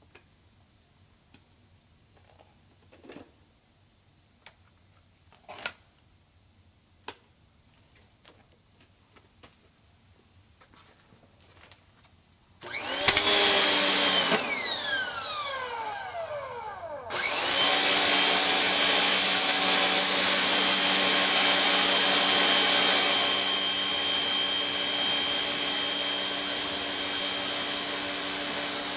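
Westinghouse ePX3500 electric pressure washer's motor and pump starting suddenly about halfway through after near quiet with a few faint clicks, sagging in pitch for a few seconds, then picking back up and running steadily with a high whine.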